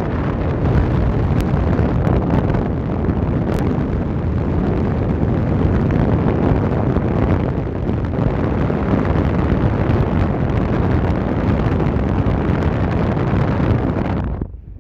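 Wind rushing past a moving car and buffeting the phone's microphone, a loud steady rushing noise that dips briefly just before the end.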